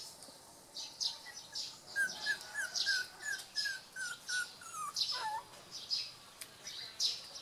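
Young puppies squeaking and whimpering: many short, high cries in quick succession, then one longer falling whine about five seconds in.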